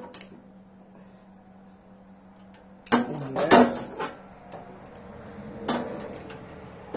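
Metal hand tools clanking on a tractor's steel frame: a small click at first, a loud clatter of several ringing hits about three seconds in as locking pliers are set down, and one more clank near the end.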